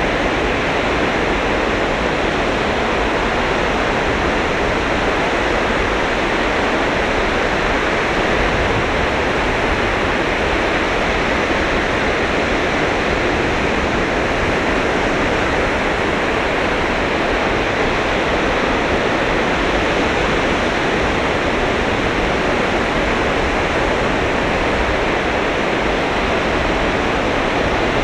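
Sea surf washing onto a beach: a steady, fairly loud rush of water with no single wave breaks standing out.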